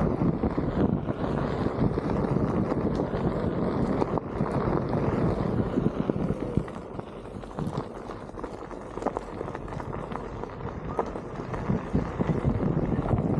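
Wind buffeting the action camera's microphone over the rumble of a Onewheel GT's tyre rolling fast along a fire road, with scattered knocks from bumps. It eases off for a few seconds in the middle, then picks up again.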